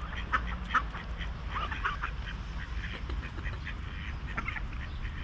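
Ducks quacking: a scattered series of short quacks over a steady low rumble.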